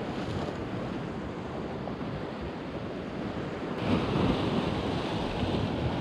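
Sea swell washing against shore rocks, with wind buffeting the microphone; the surf grows louder nearly four seconds in.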